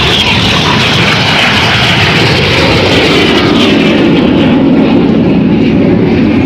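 BAE Hawk T1 jets with Rolls-Royce Adour turbofans passing fast and low: loud jet noise whose high whine falls in pitch over the first few seconds as the aircraft go by, leaving a deeper rumble.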